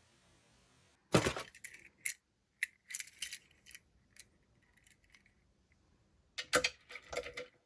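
Scattered light clicks and clinks of small hard objects being handled, in two runs: one from about a second in to about four seconds in, and another near the end.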